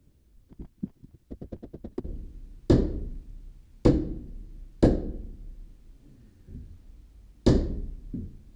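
Four heavy hammer blows on timber, knocking a diagonal wooden brace into place under a barn roof purlin to support it; the blows ring and echo in the wooden loft. A quick run of light clicks comes just before the first blow.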